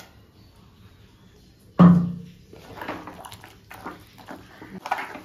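A steel spoon knocks sharply against metal once, with a brief ring, about two seconds in, then scrapes and clicks against the inside of an aluminium pressure cooker as it stirs a thick coconut paste into green peas.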